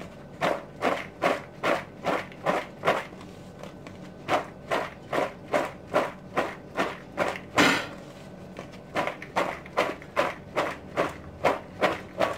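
Half-boiled tur dal mixed with chopped onion and green chillies being tossed in a plastic bowl, each toss landing with a soft thud about two to three times a second. There is a short pause a few seconds in and one louder toss past the middle.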